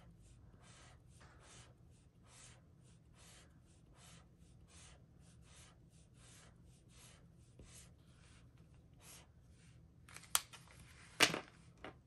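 A Zebra Mildliner highlighter's tip stroking back and forth on Hobonichi notebook paper: faint, short scratchy strokes about two or three a second. Near the end come a couple of sharp knocks.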